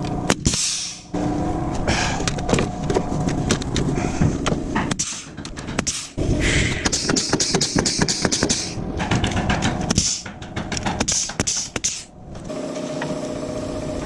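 DeWalt framing nailer firing nails through wooden blocks into the trusses: repeated sharp shots, several in quick succession, mixed with wood being knocked and handled. A steady hum takes over near the end.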